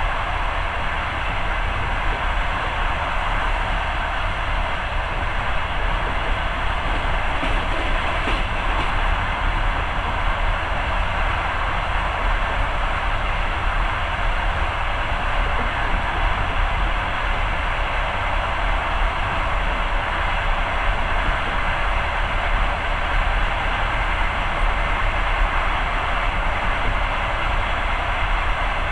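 Passenger train running at speed: a steady rumble and rush of wheels on the rails, even throughout, without distinct rail-joint clicks.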